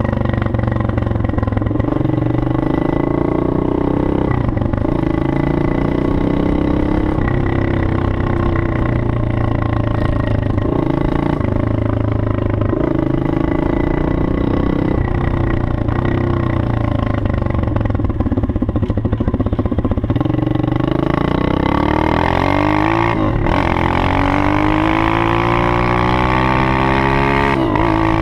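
Pit bike's 110cc Honda-type four-stroke single, fitted with a 24 mm carburettor and a gutted exhaust, running under way as the bike is ridden; the engine note rises and falls with the throttle. In the last several seconds it accelerates hard, the revs climbing and dropping briefly twice, as at upshifts.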